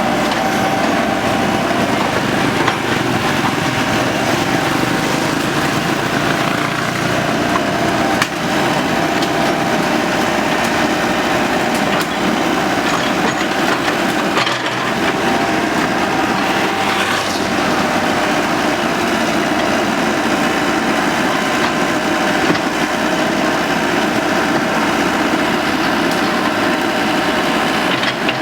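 Excavator engine running steadily under work, with a steady whine over it. A few sharp cracks of bamboo breaking.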